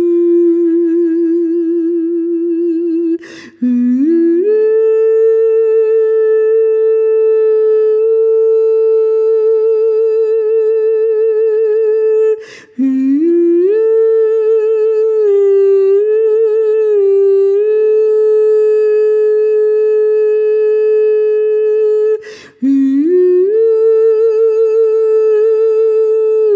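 A solo voice singing long, wordless, sustained tones with a slight vibrato. The tones break three times for a short breath, and each new note scoops up in pitch before settling and holding.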